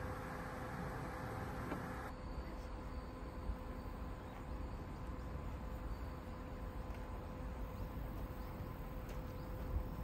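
Outdoor field ambience: insects droning steadily, over a low rumble of wind.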